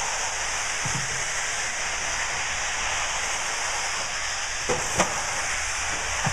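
1/8-scale RC off-road buggies racing on an indoor dirt track, a steady hissing noise of motors and tyres. There are two sharp knocks about five seconds in, the second the loudest.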